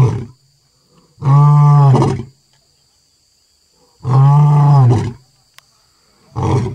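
Lion roaring: a series of deep, loud, drawn-out roars about a second each, with pauses of a second or two between them.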